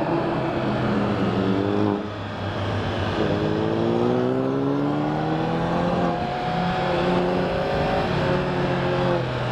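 Sport motorcycle engine accelerating hard, its pitch climbing through the gears with a brief drop at each upshift, about two seconds in and again around six seconds.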